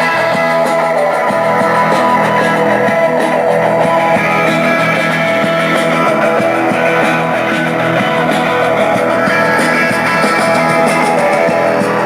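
Guitar-led rock music playing steadily through a homemade cardboard speaker set: four small 5 W speakers driven by a PAM8610 amplifier board and fed from a phone.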